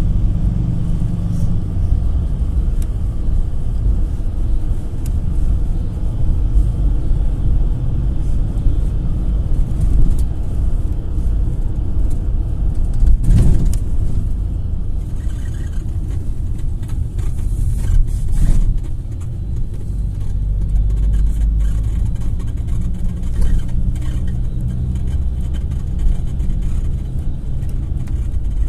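GAZelle Next minibus on the move, heard from the passenger cabin: steady engine drone and road rumble. Two thumps from bumps or the body, the louder one about thirteen seconds in and a smaller one about eighteen seconds in.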